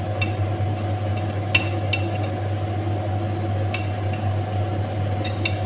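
A metal slotted spoon clinking sharply against a ceramic plate and pot as fried fish pieces are slid into the pot, about six separate clinks over a steady low hum.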